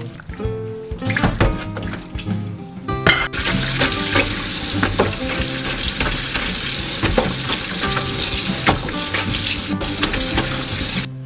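Water and cloths tipped from a saucepan into a stainless steel sink, then a kitchen tap running onto dish cloths as they are scrubbed and rinsed by hand. The tap's steady hiss starts about three seconds in and stops suddenly near the end.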